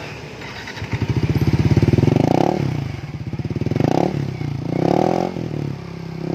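Yamaha NMAX single-cylinder scooter engine running through an SKR aftermarket exhaust, revved in one long rise and then a few shorter throttle blips. The rev check is on the harsh exhaust note the owner complained of, which the exhaust maker judges to be fairly mellow after all.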